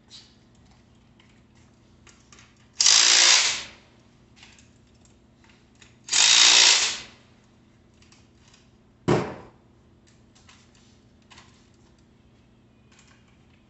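Cordless drill-driver running in two short bursts, each under a second and about three seconds apart, tightening fasteners at the front wheel hub of a bicycle. A single sharp knock follows about nine seconds in.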